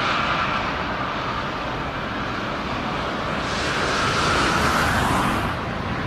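Jet airliner landing in strong wind: a steady loud rush of engine noise and wind, swelling for a couple of seconds around the middle.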